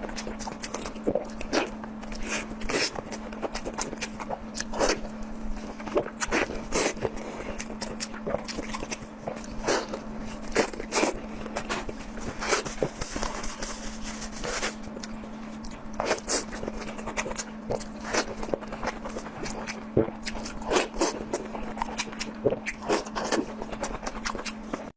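Close-miked eating sounds: irregular chewing, biting and wet mouth clicks with occasional scrapes, over a steady low hum.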